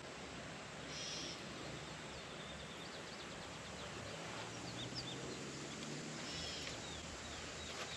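Quiet outdoor ambience with birds chirping: short high chirps repeating all through, and brief buzzy trills about a second in and again later.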